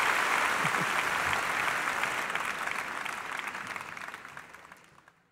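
Audience applauding, fading out to silence near the end.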